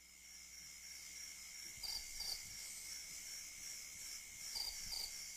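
Faint intro of a background song fading in: a steady high hiss and held tone, with soft paired chirps twice.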